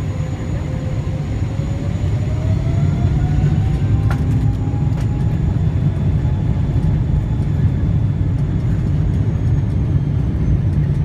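A Boeing 777-200LR's GE90 jet engine heard from inside the cabin as it spools up. A whine rises in pitch over about three seconds while the deep rumble grows louder, then both hold steady. A few faint clicks come about four seconds in.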